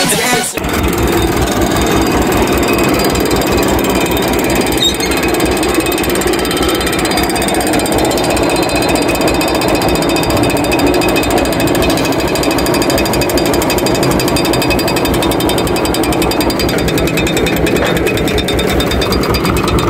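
Ursus C-330 tractor's two-cylinder diesel running steadily close up, a rapid even chugging, while it drives a drum mower cutting grass.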